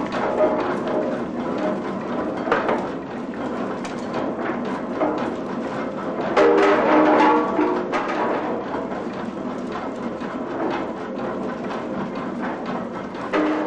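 Snuff mill machinery running, with irregular wooden and metal knocking and clattering, louder for a spell about six seconds in.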